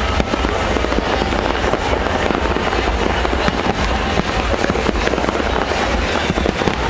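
Fireworks display: a dense, continuous crackle of many small cracks and pops running together, over a low rumble of bursts.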